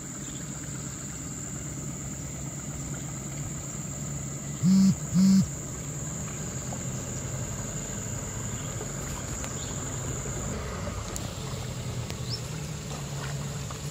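A steady high trill of forest insects stops about ten and a half seconds in. Under it runs a boat's motor with a low, steady hum. Two short, low hoots come about five seconds in and are the loudest sounds.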